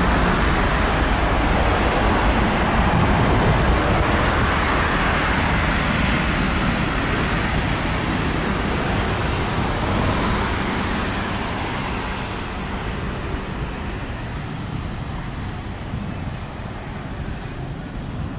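Twin-engine jet cargo plane at takeoff thrust: a loud, steady jet-engine noise through the takeoff roll and lift-off. It fades gradually over the last several seconds as the plane climbs away.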